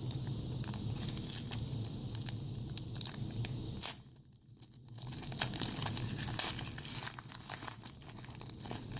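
A foil trading-card pack wrapper being torn open and crinkled by hand, with a short pause about four seconds in.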